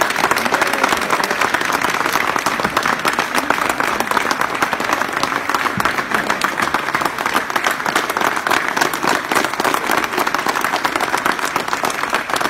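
A crowd applauding, many hands clapping steadily and loudly.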